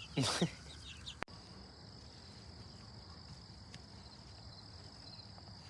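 Insects in a steady high-pitched chorus over quiet outdoor background. It follows a short, loud, falling call at the very start and a sharp click about a second in.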